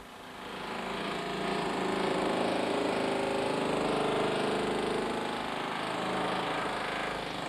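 Power saw cutting through a factory-new car's sheet-metal body: a steady, pitched mechanical run that fades in over the first second and eases off near the end.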